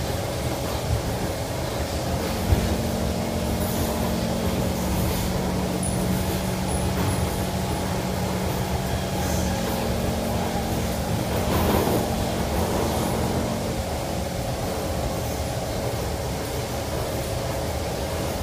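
Kawasaki Kinki Sharyo C151 metro train running on the track, heard from inside the car: a steady rumble of wheels and running gear with a hum of motor tones. There is a sharp clack about two and a half seconds in and a brief louder rush about twelve seconds in.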